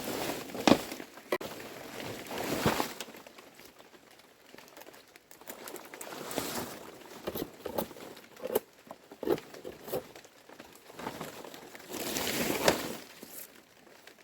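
Scattered knocks and clicks, with a few brief bursts of rustling noise, from hands-on work.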